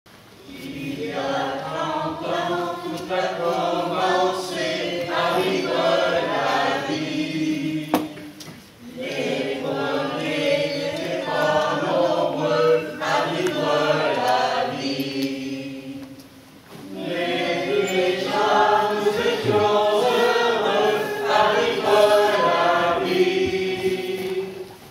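A choir singing in three long phrases, with short breaks about eight and sixteen seconds in.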